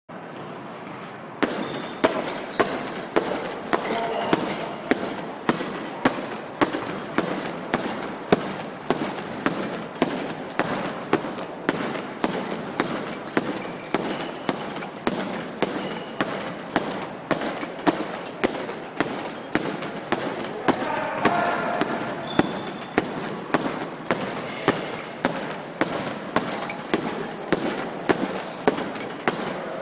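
Rapid kicks landing on a hanging heavy bag: a steady run of sharp thuds, nearly two a second, starting about a second and a half in.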